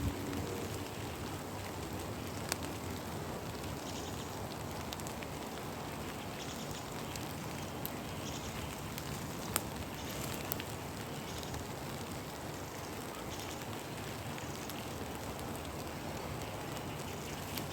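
Steady heavy rain falling, an even hiss with a few sharper taps of single drops.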